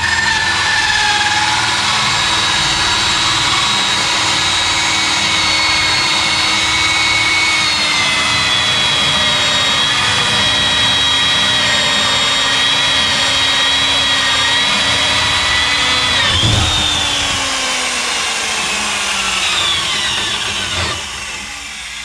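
Corded electric drill running a hole saw through a wooden door to bore a deadbolt hole, the motor whining steadily under load. About sixteen seconds in there is a knock, then the whine falls in pitch as the motor slows.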